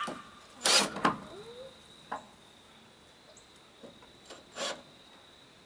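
A few short scraping, rubbing noises from work on a high-pressure sodium wall pack light being fitted to a wooden porch post, the loudest about a second in.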